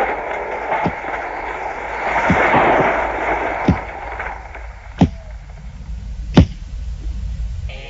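A run of five sharp bangs, about one every second and a half, the last two loudest, over a rushing noise that dies down about halfway through.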